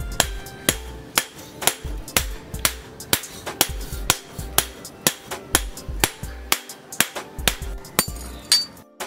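Hand hammer striking a hot steel axe blank on a steel anvil block, sharp metallic blows in an even rhythm of about two a second, over background music.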